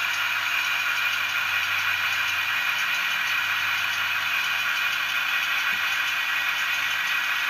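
Zimo sound decoder in an OO gauge model of the Class 28 Co-Bo playing its Crossley two-stroke diesel engine sound, running steadily as the model moves slowly. It comes through the model's small onboard speaker, with little low end.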